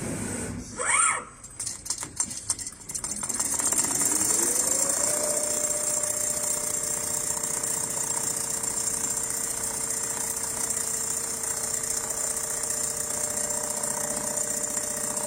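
Automatic CNC sewing machine: a few clicks and a short rising squeal, then its motor winds up over about a second and runs at a steady high speed with a fast, even stitching rattle.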